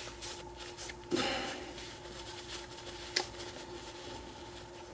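Faint handling noises of small padlock parts being worked by hand: a few soft clicks and short rustles, with a sharper click a little past three seconds, over a faint steady hum.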